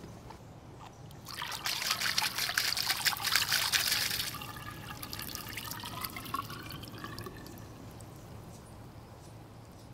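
Water gushing out of the open body of an Irritrol sprinkler control valve, its bonnet and diaphragm removed, as the supply is turned on briefly to flush out rocks and debris. The rush starts about a second in and cuts back after about three seconds, then gurgles and trickles as the flow dies away.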